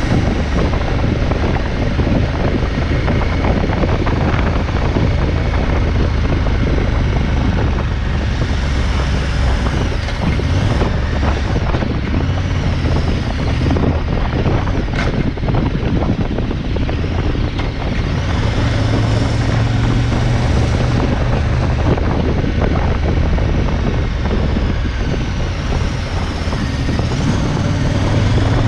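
KTM 1190 Adventure's V-twin engine running under way on a winding road, its note rising and falling with the throttle, mixed with wind and road noise on the bike-mounted camera's microphone.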